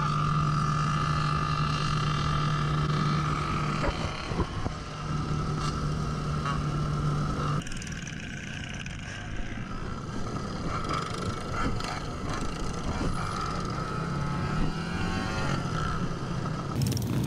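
Small mini bike engine holding a steady high speed, then dropping off sharply about seven and a half seconds in. It picks up again with rising revs near the end.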